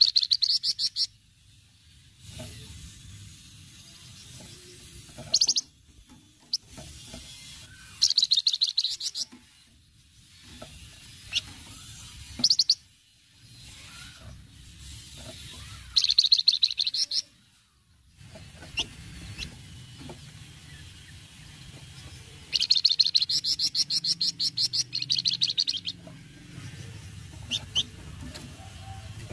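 A flamboyan songbird giving its rapid rattling 'cret-cret' chatter in repeated bursts of a second or so, with one longer run of about three seconds late on, over a faint low rumble.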